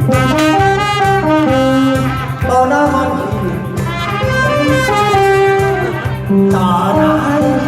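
Instrumental music: a held, sliding lead melody over a steady pulsing bass beat, the song's instrumental passage with no vocals.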